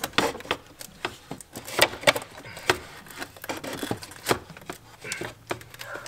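Irregular clicks, knocks and light clattering of hand tools and parts being worked on the car's intake piping and its hose clamps.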